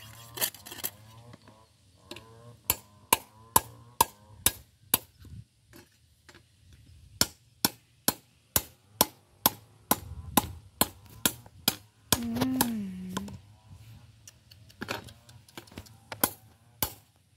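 Hammer blows on a bent lawn mower blade: sharp strikes in runs of about two to three a second with short pauses, the blade deformed from hitting something hard. A brief voice-like sound comes about twelve seconds in.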